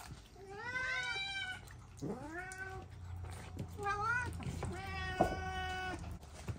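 Domestic cat meowing, four meows in a row. The first arches up and falls, and the last is a longer, level call.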